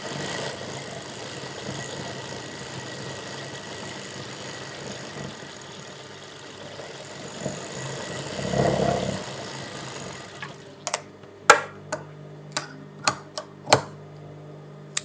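Industrial sewing machine running steadily as it stitches a seam, stopping about ten seconds in. Then a string of sharp clicks, about two a second.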